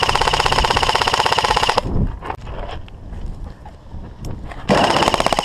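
Airsoft electric gun firing on full auto, the gearbox cycling rapidly: a burst of about two seconds, then a shorter burst of about a second near the end.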